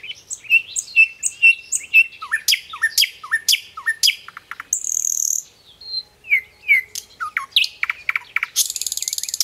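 Birds chirping and singing: runs of quick repeated chirps and down-slurred whistles, a short buzzy note about five seconds in, and a fast buzzing trill near the end.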